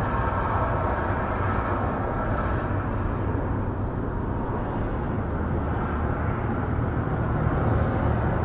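Steady outdoor background rumble and hiss with a low hum underneath and no distinct owl calls standing out.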